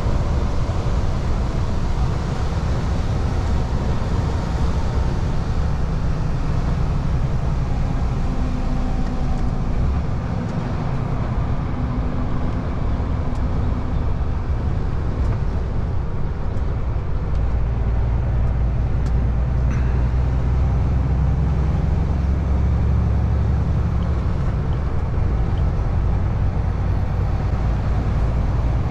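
Heavy truck's diesel engine running under way, with steady road and tyre noise. The low engine rumble grows stronger a little past halfway.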